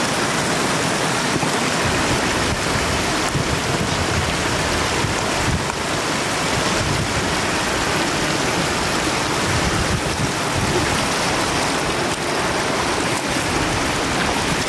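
Shallow floodwater rushing steadily across a road and through roadside weeds: a continuous, even rush of water.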